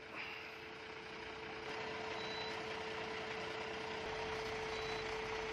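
Ashok Leyland 3718 cargo truck's diesel engine idling: a steady, even hum with one constant mid-pitched tone through it.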